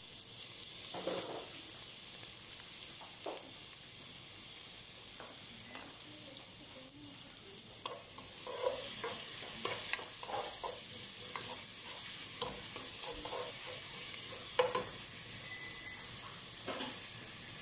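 Chopped onion and garlic sizzling in hot oil in a pot, with a spatula scraping and stirring them, more often in the second half.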